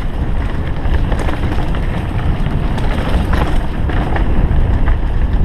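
Wind buffeting the microphone of a helmet-mounted GoPro Hero 3 as a downhill mountain bike runs fast over a rough dirt trail: a steady deep rumble with scattered knocks and rattles as the bike hits bumps.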